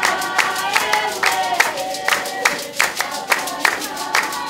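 A group singing a traditional San (Basarwa) dance song over sharp rhythmic hand clapping, about three claps a second.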